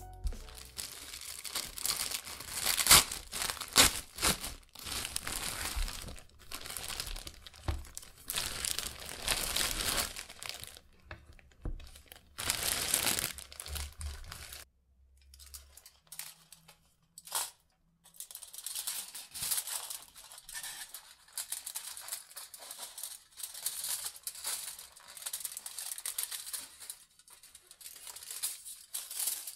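Close-up crinkling of a plastic bag of sliced bread as it is handled. After a short lull about halfway through, a sheet of aluminium foil crinkles as it is handled and cut with scissors.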